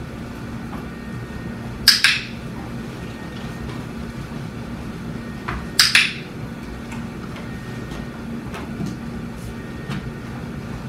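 Two short, sharp clattering noises about four seconds apart, each a quick double hit, over a steady low hum.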